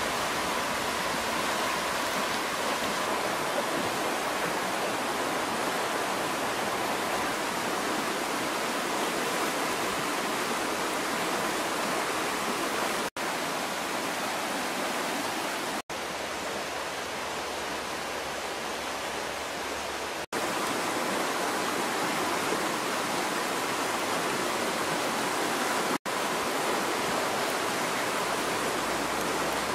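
Fast-flowing river rushing steadily, cut off for an instant four times.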